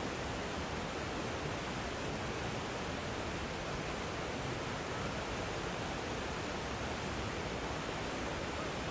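Steady rush of flowing mountain water, an even hiss with no change over the whole stretch.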